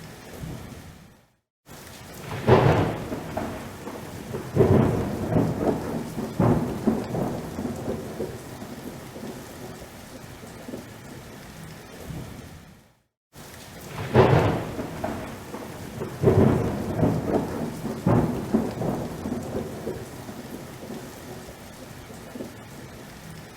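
Thunderstorm: steady rain with repeated peals of thunder, each loud crack trailing into a rumble. The sound cuts out to silence twice for a moment, once near the start and once about halfway through, and the storm pattern after each break repeats.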